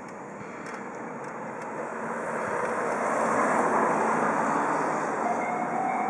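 A car passes close by on the road, its tyre and engine noise swelling and then easing. About five seconds in, the level-crossing warning bell starts its steady repeated electronic ding-ding.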